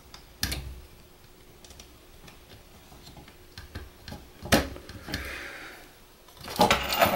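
Small sharp clicks of a crimp-on spade connector being pushed onto a switch terminal and wires being handled in a metal control box, with one louder click about halfway through. Near the end comes a busier burst of clicking and rattling.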